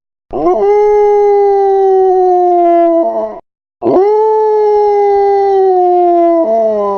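A dog howling: two long howls of about three seconds each with a short break between. Each swoops up at the start, then holds and slowly sinks in pitch before falling away.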